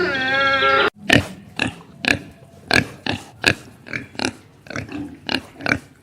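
Pig grunting in short, sharp grunts, about two a second. A brief pitched animal call cuts off about a second in, just before them.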